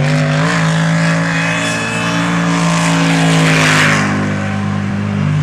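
Supercharged V8 engine of a jetsprint boat running hard; its revs dip and pick up again near the start, then hold steady. A rush of hiss swells briefly about three and a half seconds in.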